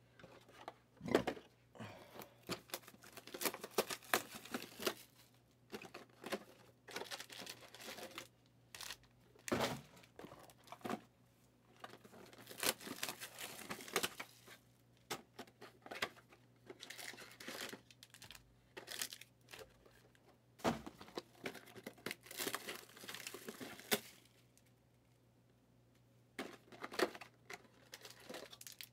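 Trading card box packaging being torn open by hand: plastic wrapping and cardboard tearing and crinkling in irregular bursts, with a short quiet pause a few seconds before the end.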